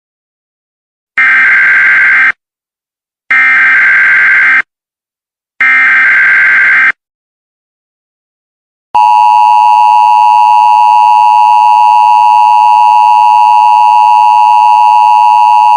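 Emergency Alert System tones opening an alert broadcast. First come three bursts of SAME header data, about a second each, with short gaps between them. Then, from about nine seconds in, the steady two-tone attention signal (853 and 960 Hz) starts and holds.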